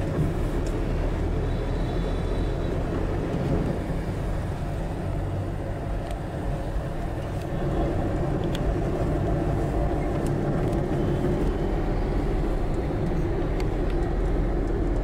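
Steady low rumble of a vehicle in motion, running evenly throughout with a slight dip in loudness partway through.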